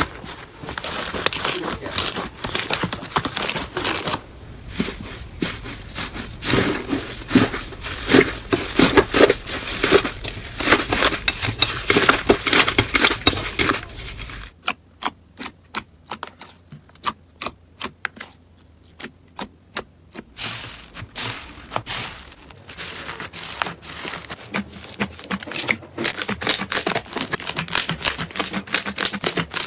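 Slime being squished and poked by hand, making rapid sticky clicks and crackles. About halfway there is a cut to a sparser run of single pops and clicks, and then the dense crackling returns.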